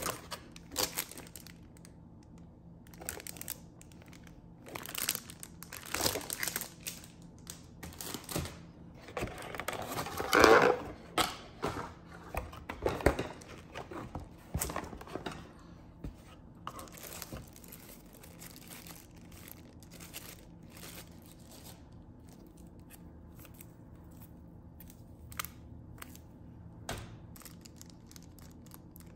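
Plastic packaging crinkling and rustling in irregular bursts as a keyboard and its accessories are unwrapped and lifted from a cardboard box. It is loudest about ten seconds in, then thins out to scattered light ticks and handling noises.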